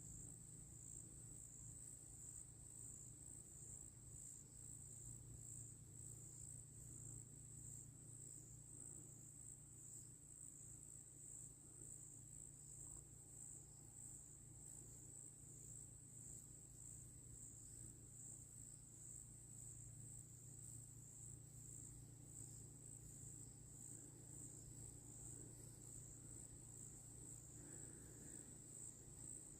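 Evening insect chorus of crickets: a steady, high-pitched trill with a fast pulse, faint against an otherwise quiet background.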